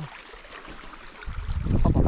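Mountain stream running, then from about a second and a half in a loud low rumble of wind gusting across the microphone.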